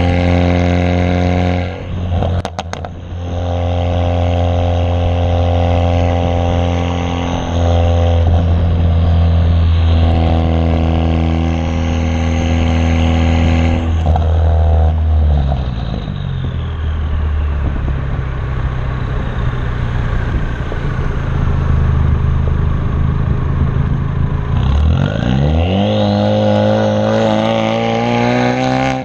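2016 Ford Focus RS's turbocharged 2.3-litre EcoBoost four-cylinder through a catless downpipe with the muffler deleted, driving: a loud, steady exhaust note with a short break and sharp crackles about two seconds in. The pitch steps down around halfway, drops low near the end, then climbs quickly as the car accelerates again.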